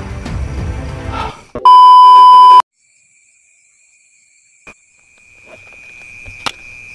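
Background music cuts off about a second and a half in, followed by a loud, steady electronic beep lasting about a second. After a brief near silence, a steady high-pitched insect trill, as of crickets, fades in from about five seconds in.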